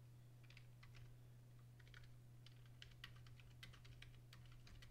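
Faint typing on a computer keyboard: a run of quick, irregular key taps, over a steady low electrical hum.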